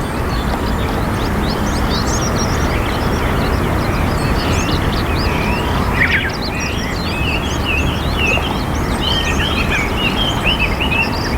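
Many small birds chirping: a busy chorus of short, quick, overlapping chirps, growing denser about halfway through, over a steady low rumble.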